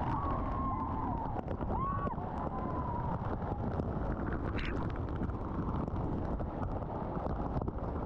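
Waterfall in full monsoon flow: a steady, heavy rush of falling water.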